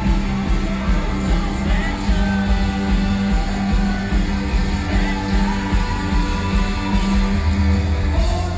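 Live rock band playing: lead vocal over electric guitar, electric bass and drums, with a steady bass line underneath.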